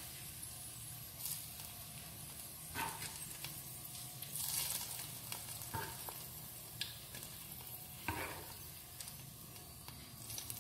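Faint steady sizzling from a pot of kadhi just topped with hot oil tadka of fried onions and spices, with a few light clicks now and then.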